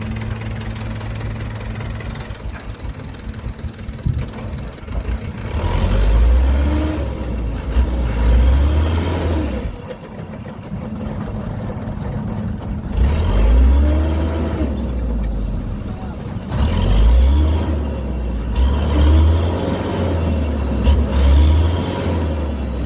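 Radio-controlled model construction vehicles running their motors in three long bursts, the pitch rising and falling as they drive and work, over a steady low hum.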